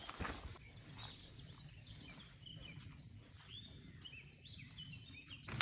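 Faint birdsong: many short chirps and whistles from small birds, over a low, steady outdoor background.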